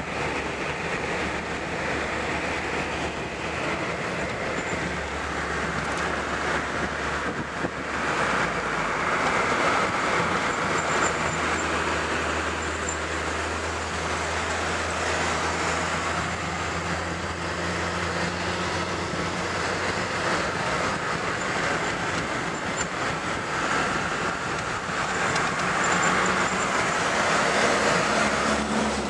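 A car driving along a winding road, heard from inside the moving car: steady tyre, wind and engine noise. The engine note changes about eight seconds in, and the noise swells a little at times.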